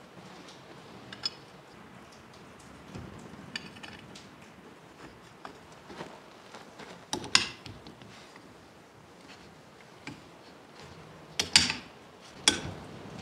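Bolts, nuts and a spanner clinking and tapping against a steel mounting plate as it is bolted onto a hydraulic snow-plow valve: scattered sharp clinks, the loudest about seven seconds in and near the end.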